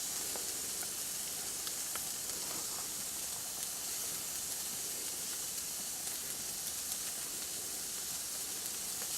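Steaks sizzling on a barbecue grill: a steady hiss broken by a few faint crackling ticks.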